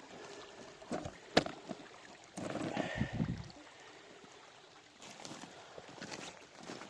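Faint water splashing and sloshing, with a sharp knock about a second and a half in and a louder splash a little later.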